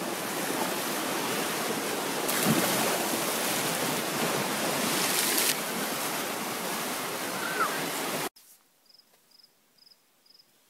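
Lake waves surging and splashing against rocky shore ledges: a steady rush of water noise that swells for a few seconds about two seconds in. After about eight seconds it cuts off abruptly to near quiet, and a faint high chirp repeats about six times, evenly spaced.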